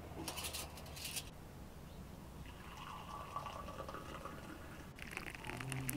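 Tea being poured from a brass teapot into a drinking glass: a thin stream of liquid trickling and filling the glass.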